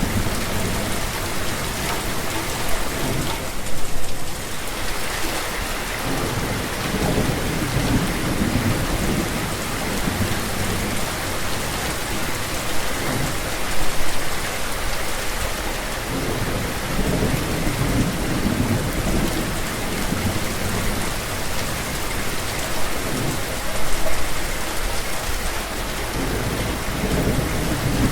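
Steady rain falling, with a low rumble underneath and brief louder moments about every ten seconds.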